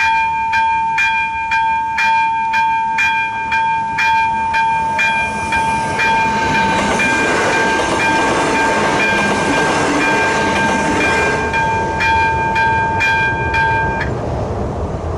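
AŽD 71 level-crossing warning bell ringing about twice a second as a ČD RegioPanter multiple unit runs over the crossing. The train's rush of wheels on rails swells in the middle and fades. The bell stops about a second before the end.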